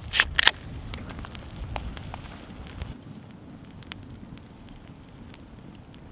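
A ring-pull beer can cracked open with two quick, sharp sounds near the start, then a wood campfire crackling with scattered pops.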